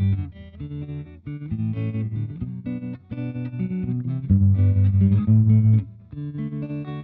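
Gretsch 6120 hollow-body electric guitar played through a Marshall amp with a Catalinbread Valcoder tremolo pedal, the volume pulsing quickly. A low, twangy single-note riff, then a chord rung out near the end.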